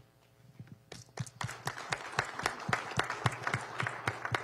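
Audience and panel applauding, starting about a second in: a run of closely spaced hand claps.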